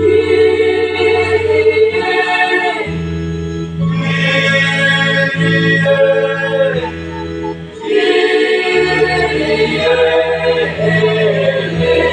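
A mixed school choir of boys and girls singing sustained phrases, with a short break between phrases about eight seconds in.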